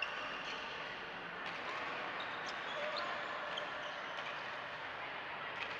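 Ambience of a busy badminton hall: scattered sharp racket-on-shuttlecock hits and faint shoe squeaks from several courts over an echoing background din.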